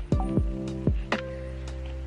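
Background music of struck notes with sustained tones over a deep bass, several new notes a second.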